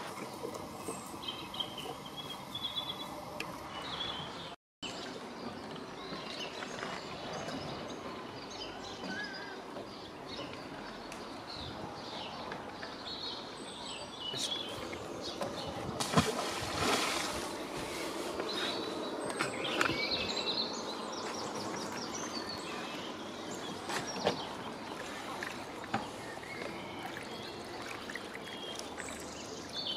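Birds singing over the steady sound of flowing river water, with a few sharp knocks now and then. The sound cuts out for a moment about five seconds in.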